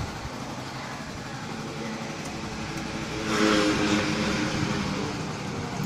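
A vehicle engine running steadily, rising louder for about a second about three seconds in, as with a brief rev.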